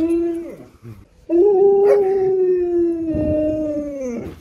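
Husky howling: one howl trails off about half a second in, then after a short pause a long, steady howl of about three seconds that sags in pitch at its end.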